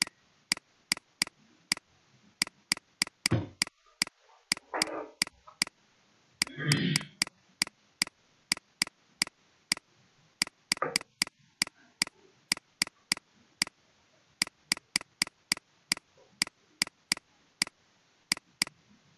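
A steady run of sharp clicks, about two or three a second and unevenly spaced, with a few short, louder noises among them, the loudest about seven seconds in.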